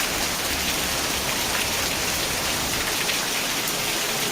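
Steady rain falling on surfaces: an even hiss full of tiny drop ticks.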